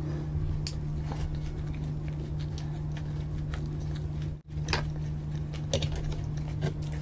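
Close-miked chewing and wet mouth sounds of people eating paratha with chole, with scattered short smacks and clicks, over a steady low hum.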